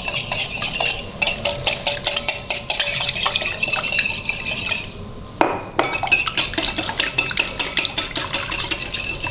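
Wire balloon whisk beating egg and milk in a ceramic bowl: rapid rhythmic clicking of the wires against the bowl, with a brief pause about halfway through.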